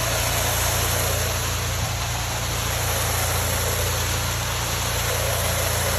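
Hot-water pressure washer running steadily: the low drone of its engine under the even hiss of the high-pressure water spray.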